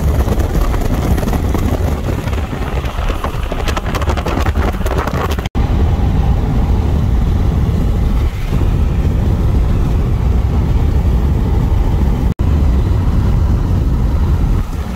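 Car travelling at highway speed: a loud, steady low rumble of road and wind noise, broken twice by brief dropouts.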